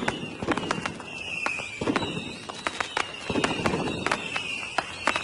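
Fireworks popping and crackling in quick, irregular bursts, with a high whistle falling in pitch about once a second.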